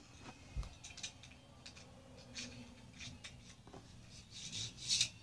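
Faint scattered clicks and rustles of plastic Beyblade tops and launchers being handled and fitted together, with a louder rustle near the end.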